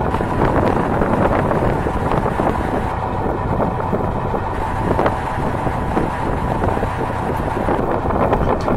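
Wind buffeting the microphone on a fishing boat at sea, over a steady low rumble from the boat.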